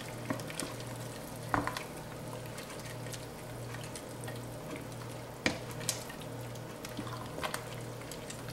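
Wooden spoon stirring a thick soup in a stainless steel stockpot, with a few sharp knocks of the spoon against the pot, over a steady low hum.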